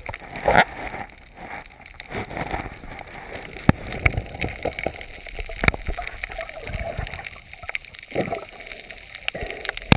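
Water sloshing and gurgling in uneven swells, with a few sharp clicks and knocks.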